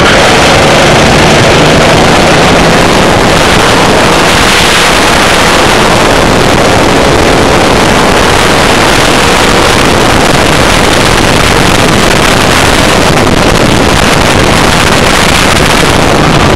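Racing kart engine running at speed, heard through an onboard camera's microphone, loud and distorted, with wind rush on the microphone.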